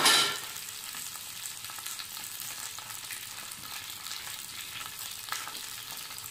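Cut okra sizzling in hot oil in a kadai. A short, louder burst of sizzling at the start settles into a steady hiss with light crackles.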